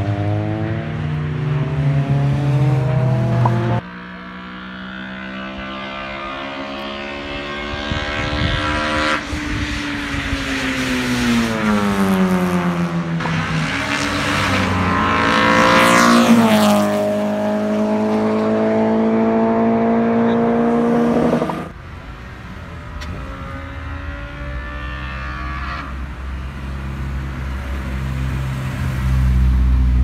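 Car engines revving and accelerating hard, the engine note sliding down and then sharply up, loudest as a car passes close about halfway through. The sound drops off suddenly twice.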